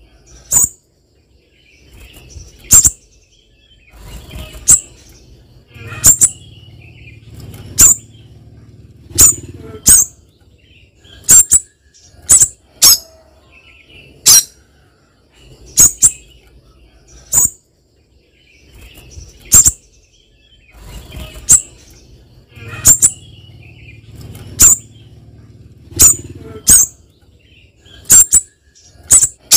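Caged spiderhunter, a female calling to a male, giving short, sharp, high-pitched calls. The calls repeat steadily, about one every one and a half seconds.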